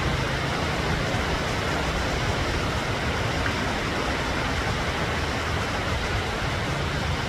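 Ocean surf: a steady wash of breaking waves with a deep rumble underneath and no single crash standing out.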